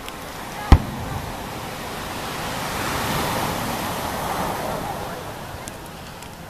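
A single sharp, loud firework shell burst bang about a second in, followed by a swell of surf breaking on the beach that builds and fades.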